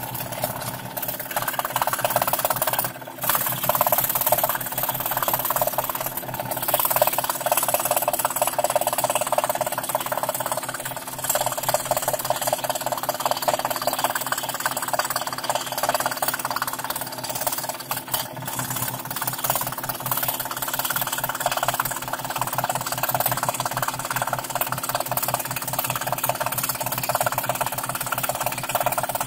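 Scroll saw running, its fine blade stroking rapidly up and down through thin plywood as a fretwork pattern is cut. It is a steady, fast chatter with a brief dip about three seconds in.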